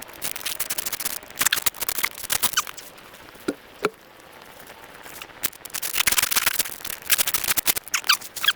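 Leg protectors against thorns being pulled on and fastened: bursts of crackling, tearing rustle of stiff fabric and straps, in two stretches with a short lull in the middle.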